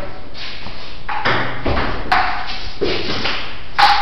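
Table tennis ball hitting paddles and the table during a rally: a few sharp clicks with a short pinging ring, the loudest near the end.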